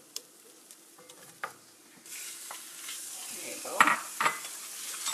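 Chicken pieces going into hot oil in a pan start to sizzle about two seconds in, a steady hiss of frying. A few sharp clinks and scrapes of a utensil against the pan sound over it.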